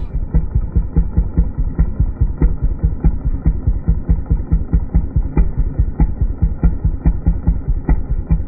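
Chainsaw engine idling with an uneven pulsing beat of about four to five pulses a second, dull-sounding with the treble cut off.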